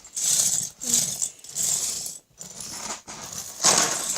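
Plastic Lego bricks clattering as they are rummaged through in a pile, in several short bursts about a second apart.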